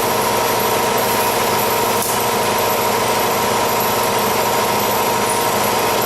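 A motor running steadily at a constant speed, with a steady whine over it and a faint click about two seconds in.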